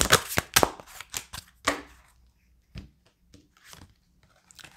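Deck of oracle cards being shuffled by hand: a quick run of card slaps through the first second or so, then a few single card slaps spaced out as cards are pulled from the deck.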